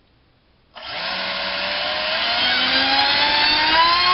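Racerstar BR2406S 2300 kV brushless motor spinning a HobbyKing 5x4 three-blade propeller on a 4S battery. It starts suddenly under a second in and speeds up steadily, its whine rising in pitch over the rush of the prop's air.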